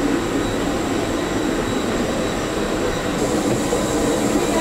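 Steady rushing jet-turbine noise with a thin, constant high whine from aircraft running on the apron beside the boarding stairs.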